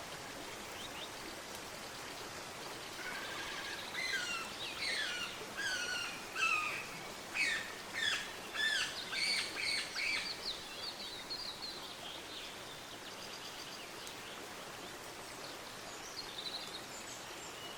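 Birds calling: a run of short chirping notes, many sliding down in pitch, from about three to eleven seconds in, with a few faint calls again near the end, over a steady background hiss.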